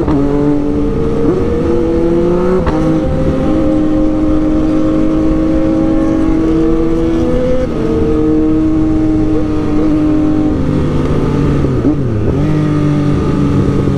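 Sport motorcycle engine heard from the rider's seat while riding along, with wind and road noise. The engine note holds steady for a few seconds at a time and shifts in pitch several times as the throttle or gear changes.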